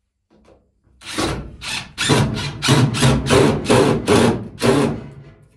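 Cordless driver running a screw into timber in a run of short, quick bursts, about ten over four seconds.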